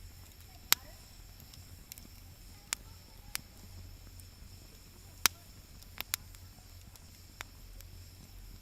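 Wood fire crackling: sharp single pops and snaps at uneven gaps, about seven of them, over a steady low hum.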